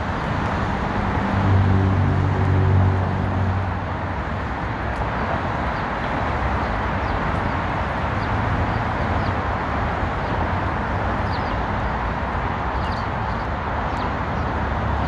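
Steady city road traffic, with a heavier vehicle's engine hum rising and then fading about one to four seconds in, and a few short high bird chirps near the end.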